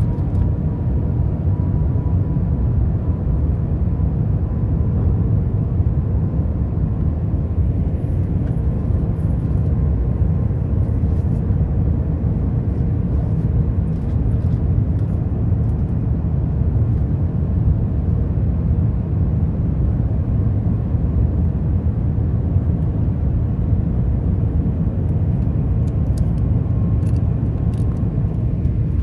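Airliner cabin noise during descent: the steady low rumble of the jet engines and airflow heard from inside the cabin, with a faint steady hum over it.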